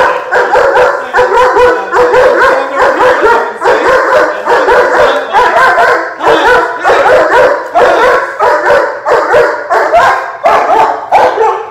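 One-year-old German Shepherd barking very loud and without a break, about two to three barks a second, while lunging on the leash: reactive barking at another dog.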